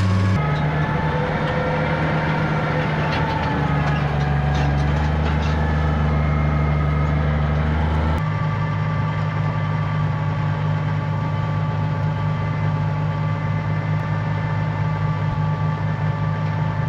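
Tractor engine running steadily while pulling a hay rake through alfalfa windrows. The engine note changes abruptly about half a second in and again about eight seconds in.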